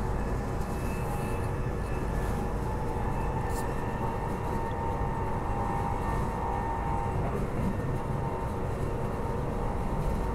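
Transperth B-series electric multiple unit (Bombardier/Downer EMU) running at steady speed, heard from inside the car: a continuous low rumble of wheels on track with a steady whine from its electric drive.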